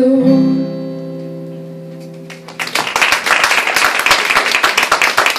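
A final strummed chord on an acoustic guitar rings out and slowly fades as the song ends. About halfway through, audience clapping breaks out and carries on.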